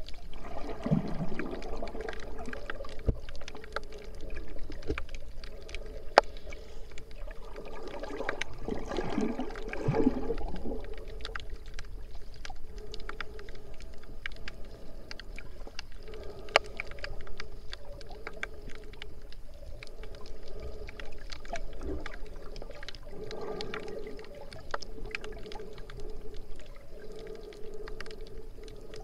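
Muffled underwater water noise picked up through an action camera's waterproof housing: a steady churning rumble with gurgling surges about a second in and again near the middle, and many scattered sharp clicks.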